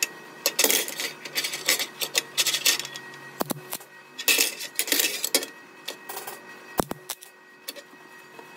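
Wire-feed welder tack-welding 3/16-inch cold-rolled steel rod: about three short bursts of arc crackle in the first two-thirds, with a couple of sharp clicks between them.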